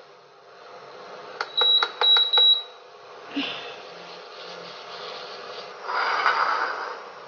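Induction cooktop's touch buttons beeping three times in quick succession as the setting is changed. About six seconds in, a short rasp as the frying pan is shifted on the glass top.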